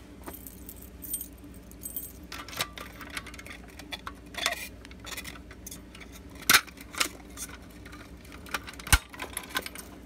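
A ring of keys jangling as a key is put into and turned in the reset lock of a Fire-Lite BG-12L manual fire alarm pull station, with several sharp metallic clicks, the loudest about six and a half and nine seconds in: the activated pull station being reset.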